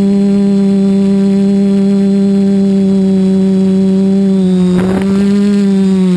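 Multirotor drone's motors and propellers droning at a steady pitch in flight, heard close up from the onboard camera. A short crackle comes about five seconds in, and the pitch dips slightly near the end.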